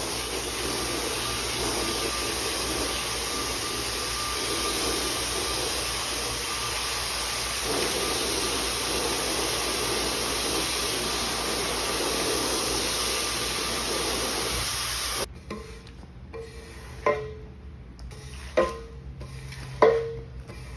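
High-pressure water spraying from a pressure-washer wand onto a wet area rug, a steady hiss that cuts off suddenly about 15 seconds in. Then a metal squeegee is pushed across the wet concrete floor, giving about five sharp knocks and scrapes with a short ringing tail.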